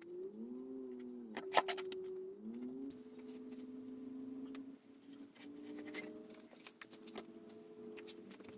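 Light clicks and metallic clinks of small hardware being handled, with a sharp knock about one and a half seconds in. Under them runs a steady hum that slides in pitch a couple of times near the start.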